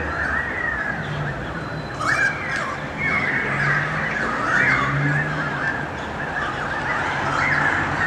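A flock of birds calling from the trees, many overlapping calls gliding up and down, growing denser and louder about two seconds in; the birds are objecting to a magpie perched in their tree.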